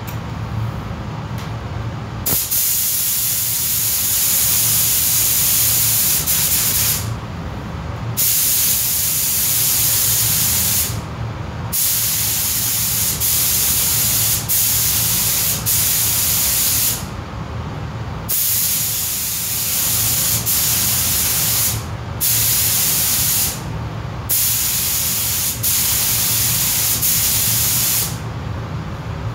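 Pneumatic paint spray gun spraying primer onto car plastic parts. It hisses in about six long passes of several seconds each, with short breaks as the trigger is released, over a steady low hum.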